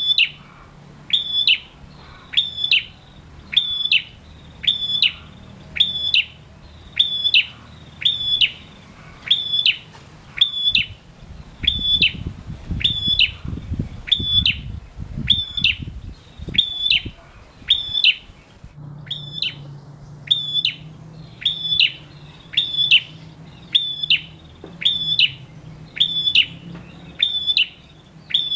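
Ashy tailorbird sold as a prenjak, singing a loud, sharp chirping note over and over, about once a second in a steady, even rhythm. A low rumble sits under the calls for a few seconds in the middle.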